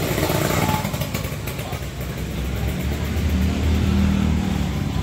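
Vehicle engines running in traffic. A low, steady engine hum grows louder for a second or two from about three seconds in. There is no telolet horn.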